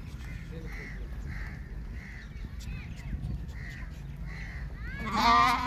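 A fat-tailed dumba sheep bleats loudly once, about five seconds in, a wavering call lasting about half a second. Before it there are only faint, repeated calls over a low steady rumble.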